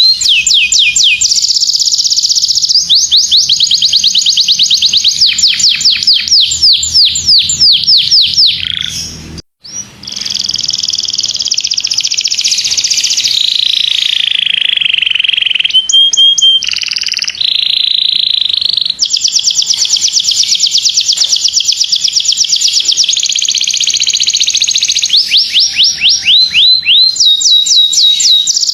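Domestic canary singing a long, loud song of rapid repeated sweeping notes and fast rolls, breaking off briefly about a third of the way in.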